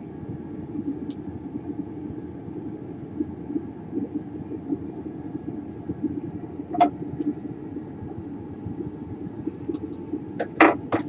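A steady low rumble runs throughout, with a few sharp clicks: one about a second in, one about seven seconds in, and several close together near the end.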